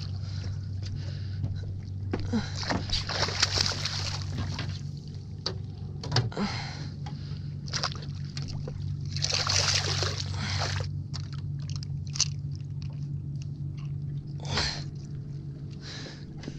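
Hooked striped bass splashing and thrashing at the surface beside the boat in several bursts, the biggest about ten seconds in, over a steady low hum of the boat's motor.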